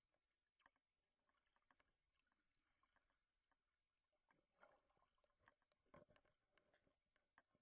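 Near silence underwater: faint, irregular clicks and crackles, busiest and loudest around the middle and about six seconds in.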